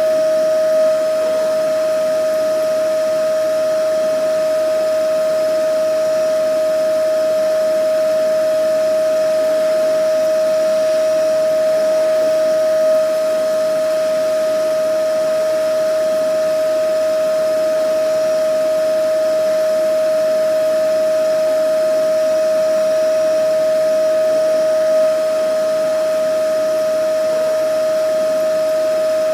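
Vacuum cleaner running steadily: an even rush of air with a constant motor whine.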